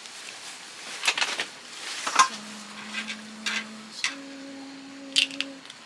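Clinks and clacks of dishes and utensils being handled for camp food, a scatter of sharp knocks. Two steady low tones are held for about a second and a half each in the middle.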